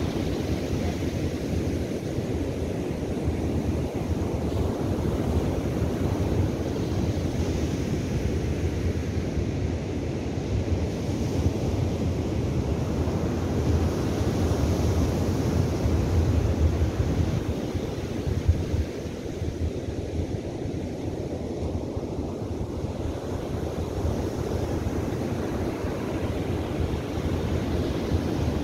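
Ocean surf breaking and washing on a sandy beach, a continuous rush that swells and eases slowly, with wind buffeting the microphone.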